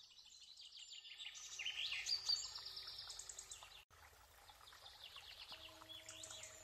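Songbirds singing: several overlapping fast trills and chirps, cutting out for an instant about four seconds in.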